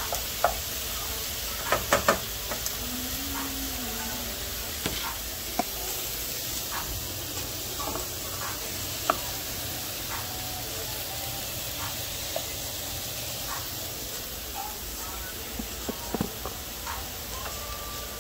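Sausage, onions and asparagus frying in skillets, sizzling steadily, with a few sharp knocks of a wooden spatula against a pan, several close together about two seconds in.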